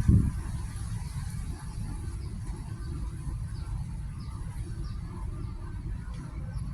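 Outdoor garden ambience: a steady low rumble with a few faint, short, falling bird chirps in the middle.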